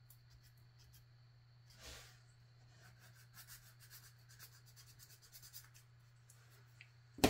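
Faint scratching of sandpaper rubbing primer off a small plastic model figure part, with light ticks of handling and a sharp knock near the end. A low steady hum runs underneath.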